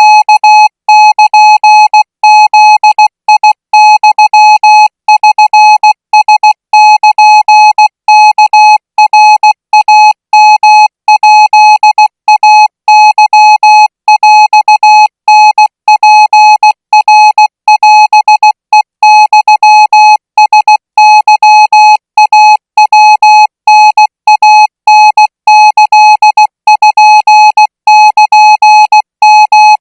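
Thai Morse code sent as a single steady beep tone keyed on and off in a continuous run of short and long elements (dots and dashes) at 20 words per minute.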